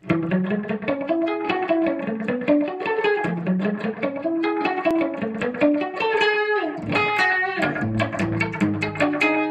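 Instrumental background music led by a plucked guitar playing a quick, busy run of notes.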